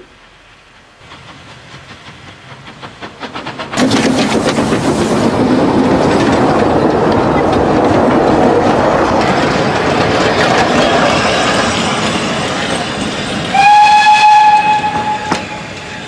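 Narrow-gauge steam train approaching and passing close by: the locomotive's rhythmic chuffing builds up, then a loud, steady rush of steam and clattering wheels as the train goes by. Near the end the locomotive's whistle gives one steady blast of about a second and a half.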